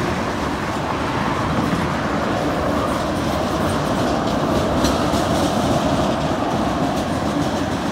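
Freight train cars rolling past on the main line: a steady rumble and rattle of wheels on rail.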